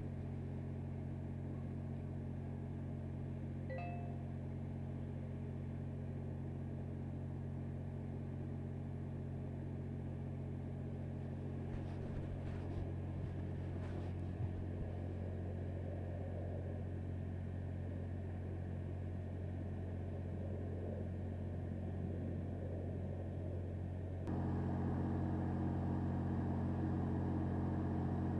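Steady low drone of an idling engine, constant in pitch, which grows louder near the end.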